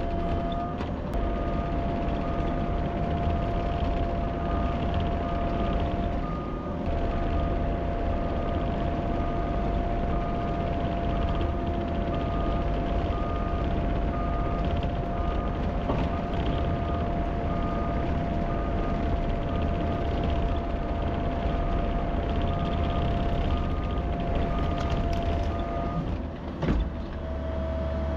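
Diesel engine of a piece of heavy earthmoving equipment running steadily, with its backup alarm beeping about once a second while it reverses. Near the end the beeping stops and there is a brief knock.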